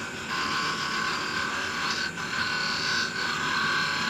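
Wood lathe running with a narrow parting tool cutting into a spinning mahogany spindle to form a tenon: a steady motor whine under a hiss of cutting that swells and eases as the tool goes in.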